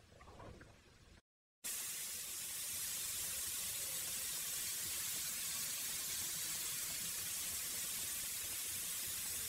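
Cinnamon-sugared pineapple rings sizzling on a hot ridged grill pan as they char: a steady hiss that starts suddenly about a second and a half in, after a brief moment of silence.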